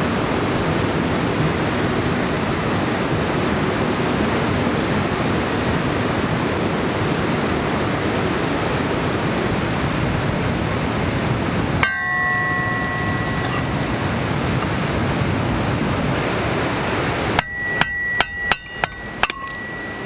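A steady rushing noise, then a brief metallic ring. Near the end comes a quick run of about seven sharp hammer strikes with a metallic ring: firewood being split on an iron kindling-splitter ring.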